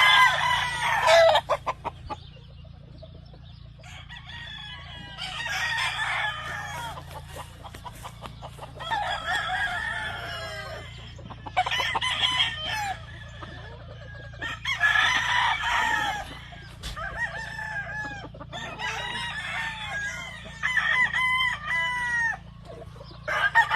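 Gamefowl roosters crowing one after another, about a crow every two to three seconds, with some overlapping. A steady low hum runs underneath.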